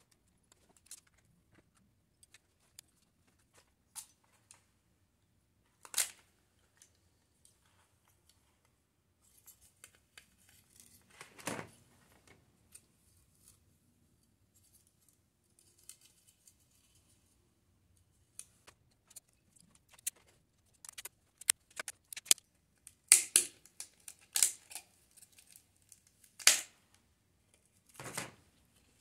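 Scattered clicks, taps and short scrapes of a compact digital camera's plastic and metal casing being unscrewed and pried apart with a small screwdriver. Past the middle the clicks and knocks come thicker and louder as the casing shells come off.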